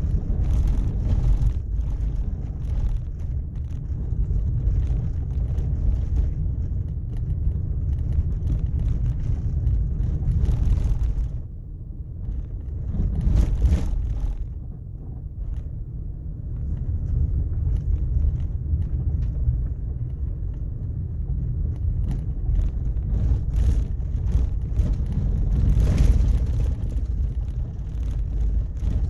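Steady low rumble of a car driving on a sand-strewn desert road, its tyre and wind noise, with a few short knocks as it goes.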